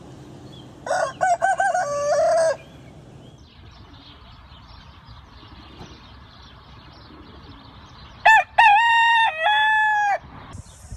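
Roosters crowing: two full cock-a-doodle-doo crows, one about a second in and another about eight seconds in, each lasting about two seconds and ending on a long held note.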